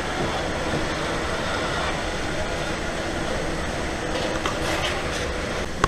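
Indoor range's motorized target carrier running steadily along its overhead track as it sends the paper target back down range, with a continuous mechanical rumble.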